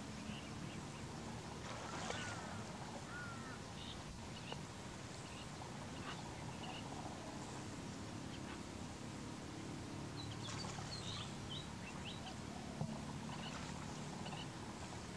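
Birds calling in short, high chirps and a few brief whistles, scattered, bunched about two seconds in and again around ten seconds in, over a steady low hum.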